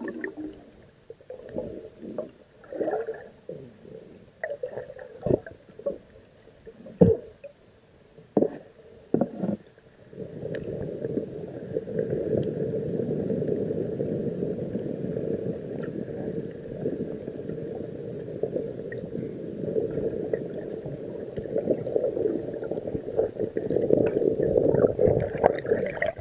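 Water and bubbles heard through a submerged camera, muffled and low. Irregular short bubbling gurgles for about the first ten seconds, then a continuous churning rumble of moving water and bubbles.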